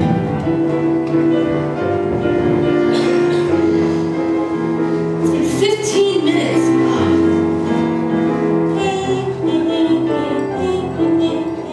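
Music: sustained chords over a bass line that moves in slow steps, dropping away near the end.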